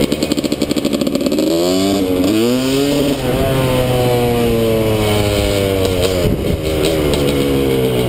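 Suzuki RM250 single-cylinder two-stroke dirt bike engine, heard from on the bike. It runs in an uneven, choppy pulse at first, revs up sharply about two seconds in, then its pitch falls slowly and steadily as the bike slows.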